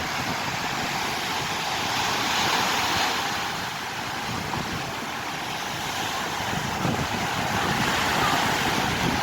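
Black Sea surf washing on the shore, mixed with wind buffeting the microphone in a steady rushing noise.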